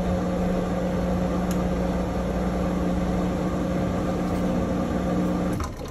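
Maytag Bravos top-load washer running a component in its diagnostic test mode: a steady hum with one constant tone, cutting off shortly before the end.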